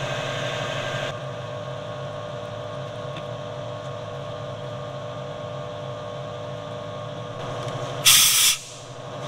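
Milling machine spindle running steadily with a drill bit in a cross hole in a cold-rolled steel pin. About eight seconds in, a short, loud hiss from a compressed-air blow gun clears chips from the hole.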